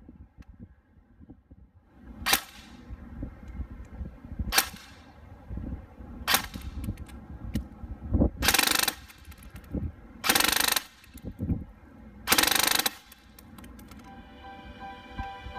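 Modify XTC-G1 electric airsoft rifle (AEG) firing through a chronograph: three single semi-auto shots a couple of seconds apart, then three short full-auto bursts of about half a second each, cycling at about 25 rounds a second.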